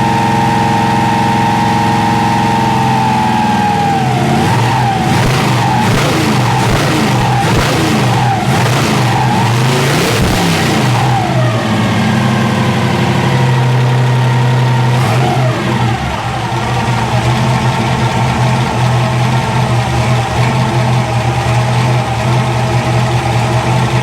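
Chevrolet 454 big-block V8 running. It holds a fast, steady speed, drops about three to four seconds in, and is revved up and down several times. At about eleven seconds it settles to a steady idle, with one short blip a few seconds later. The engine is being run up while the ignition's total advance is read with a timing light.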